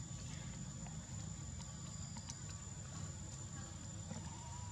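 Outdoor ambience dominated by a steady high insect drone over a low rumble, with a few faint clicks; a second, lower steady tone joins near the end.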